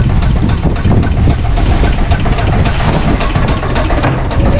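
Strong wind buffeting the microphone, making a loud, uneven low rumble, with many small clicks and rustles as a nylon gill net is hauled across the boat's deck.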